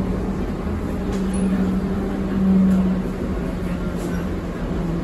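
Tram running along its rails: a steady low rumble with an even hum that swells briefly about two and a half seconds in.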